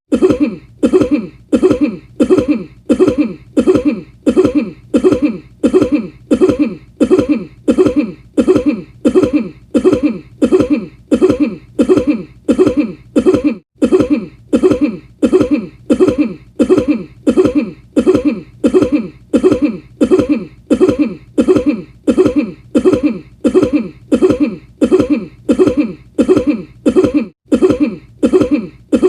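A single recorded cough looped over and over, the same cough repeating evenly about three times every two seconds.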